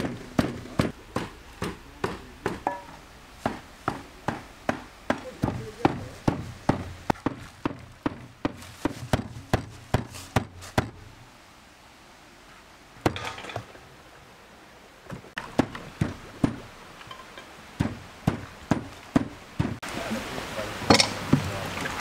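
Small hatchet chopping raw meat into mince on a wooden stump block: dull knocks a few times a second, breaking off briefly about halfway, then going on less evenly. Near the end a steady hiss comes in.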